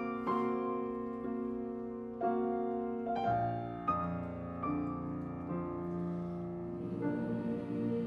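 Piano playing slow, spaced notes and chords, about one a second, each ringing on and fading; from about six seconds in the sound holds on sustained tones.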